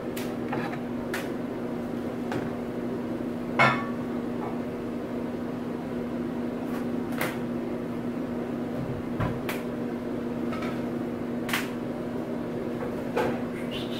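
Dishes being handled and set down: scattered clicks and knocks, with one louder ringing clink about four seconds in, over a steady appliance hum.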